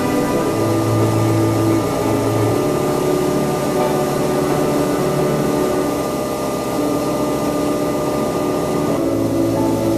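Stainless-steel universal grinder running steadily as material is fed into its hopper, under slow ambient background music of long held chords.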